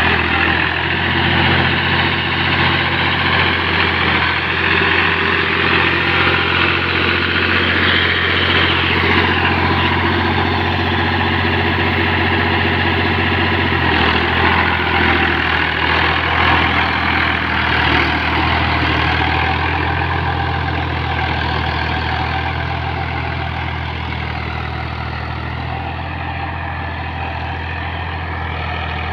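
New Holland (Fiat) 480 Special tractor's three-cylinder diesel engine running steadily under load as it pulls a tine cultivator through the soil, fading gradually over the last ten seconds or so as the tractor moves away.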